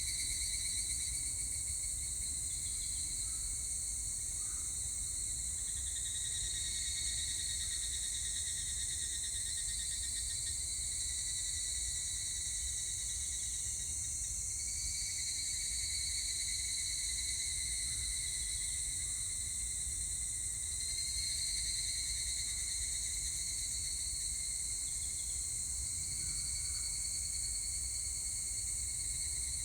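Higurashi (evening cicadas) singing in repeated phrases several seconds long, one following another about every six or seven seconds, each sagging slightly in pitch as it ends. A steady high-pitched drone runs underneath.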